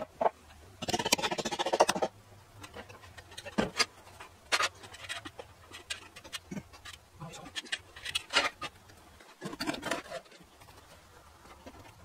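Carpentry on a timber frame: a rapid rattling burst lasting about a second, then scattered knocks and taps on the wood.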